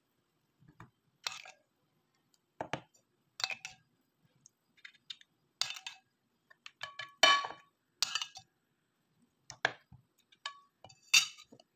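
A spoon clinking and knocking on dishes as sauce is spooned onto lamb pieces in a baking pan: about a dozen separate short clinks, some ringing briefly, the loudest about seven seconds in and near the end.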